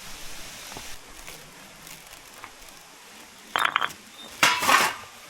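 Cookware and utensils clinking and clanking as they are handled and set down during cooking setup. The clatter comes in two short bursts near the end, the second louder.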